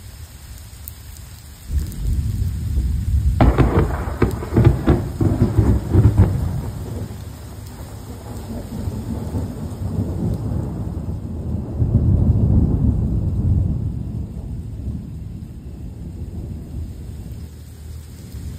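Close thunder over steady rain. A deep rumble starts about two seconds in and breaks into a string of sharp cracks. It then rolls on, swells again, and slowly fades.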